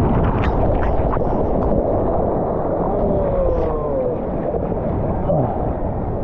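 Rushing water and a steady, heavy rumble from a ride down a water slide, muffled as if through a waterproof camera housing, with a few brief gliding tones near the middle.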